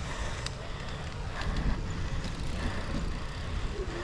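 Cyclocross bike ridden over a dirt course: a steady low rumble of wind on the microphone and tyres on the ground, with scattered clicks and rattles from the bike.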